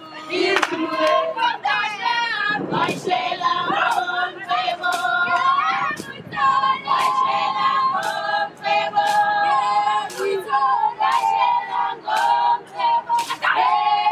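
Group of Zulu girls and young women singing a traditional song together in long held notes, with sharp percussive hits at intervals through the singing.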